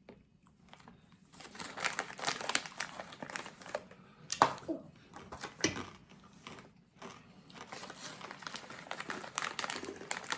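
A bag of snack mix crinkling and rustling as a hand rummages through it for pieces. Irregular crackling that starts about a second in, with a few sharper, louder crackles midway.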